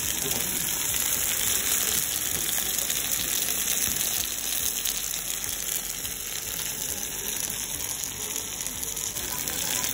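Beef sizzling dish hissing steadily on a hot cast-iron sizzler plate, the sauce still frying and steaming against the iron.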